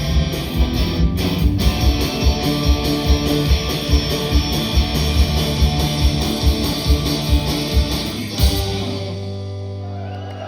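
Live punk rock band, with drums and electric guitars, playing the closing bars of the song. The fast beat stops on a final hit about eight and a half seconds in, leaving a ringing guitar chord that slowly fades.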